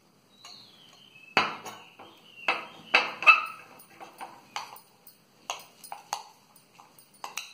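Steel spoons clinking and scraping against glass bowls as oats are spooned in and stirred into a peanut butter and honey mixture. The clinks ring briefly; several loud ones in the first half, then lighter taps.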